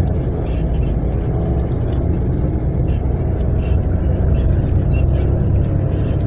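Natural-gas city bus driving along a street, heard from inside the cabin: a steady low rumble of engine and road.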